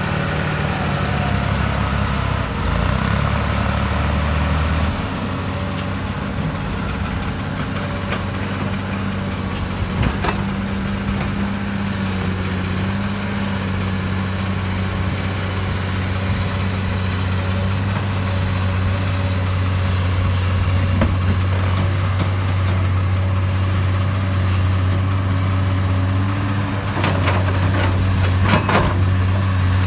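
Diesel engines of a Komatsu PC210 excavator and a farm tractor running steadily with a deep drone, the note shifting about five seconds in. A few short knocks sound near the end.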